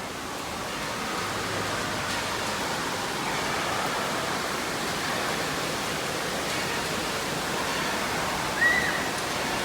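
Steady rushing-water noise of an indoor water park. A short high-pitched squeal comes near the end.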